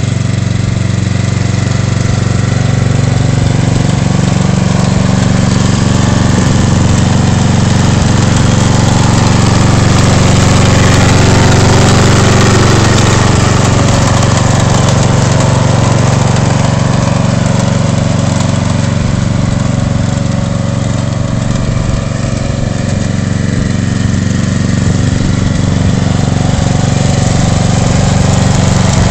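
Ride-on lawn tractor's engine running steadily under remote control, growing louder toward about twelve seconds in and dipping briefly a little past twenty seconds.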